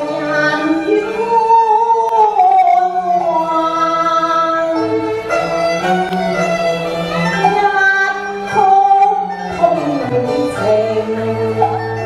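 Chinese opera-style singing: a singer's sliding, long-held melody over an accompaniment of bowed strings and held bass notes.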